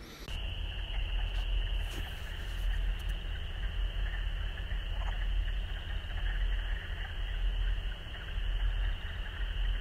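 A dense chorus of frogs calling, heard as one steady high-pitched sound without breaks, over a steady low rumble.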